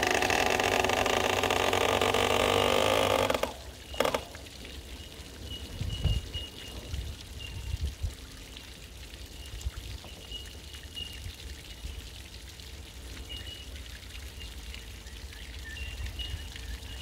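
A 140 hp outboard motor running on a garden-hose flush until it stops abruptly about three and a half seconds in, followed by a single knock. After that, water from the flushing hose pours and trickles from the motor's leg.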